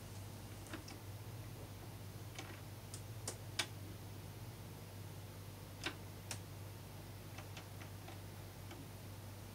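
Technics SL-MA1 turntable's front-panel buttons clicking under a finger as its automatic tonearm mechanism moves the arm: a scatter of short sharp clicks, loudest about three and a half and six seconds in, over a steady low hum.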